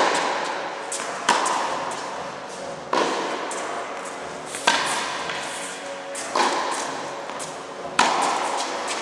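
Tennis balls struck by racquets in a steady baseline rally, five sharp hits about one and a half seconds apart. Each hit echoes and dies away slowly in a large metal-walled indoor hall.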